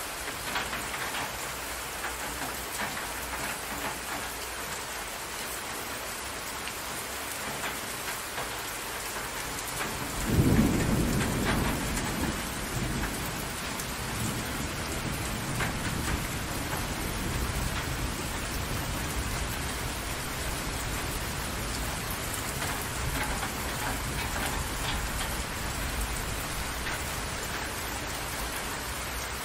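Steady rain falling on water, with a loud clap of thunder about ten seconds in that rolls on as a low rumble for many seconds after.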